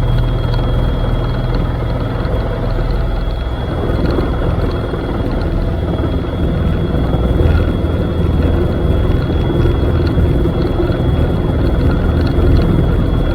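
Helicopter engine and rotor noise heard from inside the cabin in flight: a loud, steady rumble with a constant high whine over it, the rumble thickening about three and a half seconds in.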